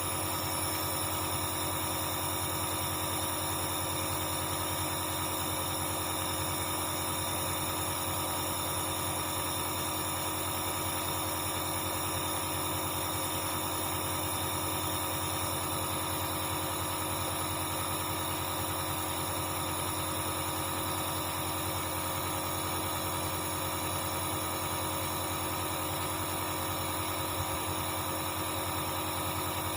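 Dr Trust compressor nebulizer's compressor running with a steady hum.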